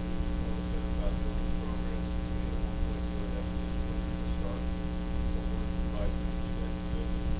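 Steady electrical mains hum with a ladder of overtones, a constant buzz on the recording that does not change throughout.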